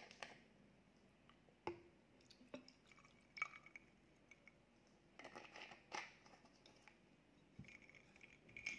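Quiet pouring of a drink from a plastic bottle into a glass of ice, with scattered clinks and taps of ice, glass and bottle being handled.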